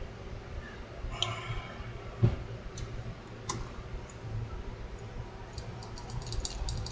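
Scattered small clicks and taps of screws and small metal parts being handled, with a quick run of light ticks near the end.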